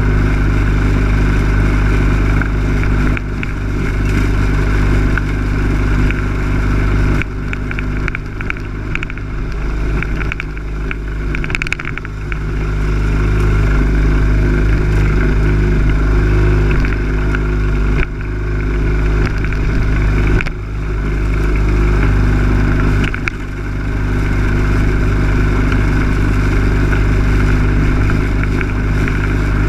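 Lawn mower engine running steadily, heard close up from the machine itself. The sound thins and wavers for a few seconds about a quarter of the way in and dips briefly a few times later.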